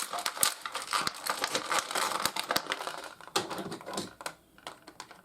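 Plastic packaging and small plastic toy parts being handled: a dense run of small clicks and crinkles that thins to a few sharper clicks and goes quieter near the end.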